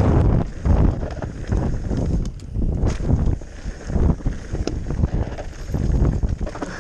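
Wind buffeting the microphone in gusts over rumble and rattle from a mountain bike riding a trail, with a few sharp knocks.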